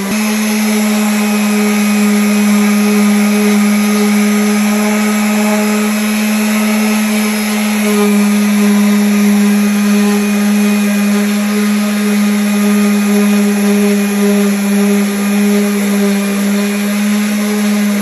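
Electric sander running steadily against wood, an unbroken hum at one pitch.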